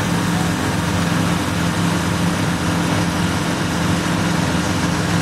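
Hiperlight ultralight biplane's small engine and propeller running steadily in flight, an even drone that holds the same pitch.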